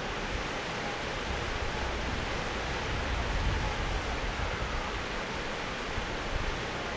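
Steady rush of whitewater river rapids, with an uneven low wind rumble on the microphone.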